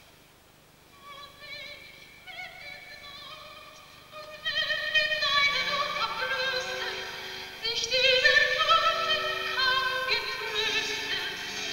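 Background music with a high, wavering, opera-like melody line. It fades in from near quiet about a second in and swells louder about four and a half seconds in.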